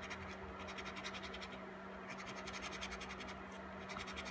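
A coin scraping the coating off a scratch-off lottery ticket in quick, rhythmic strokes, faint, over a steady low hum.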